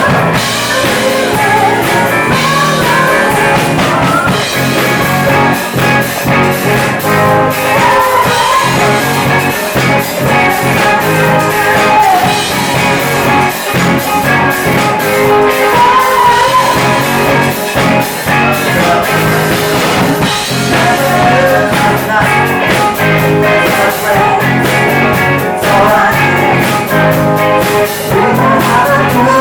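Live band playing a rock-soul cover with a singer, electric guitar, bass and drum kit, loud and continuous.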